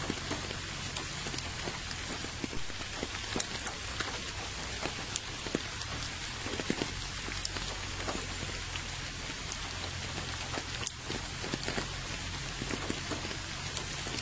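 Steady rain falling, with many separate drops splashing close by and one sharper splash about three quarters of the way through.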